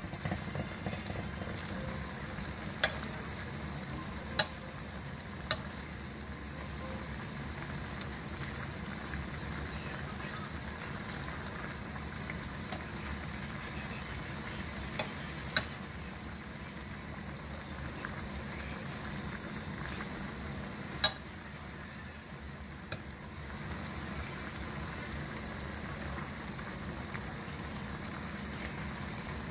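Soy-based braising sauce bubbling and sizzling steadily around pork ribs in a pan, with a few sharp clicks of metal tongs against the pan as the pieces are stirred and turned.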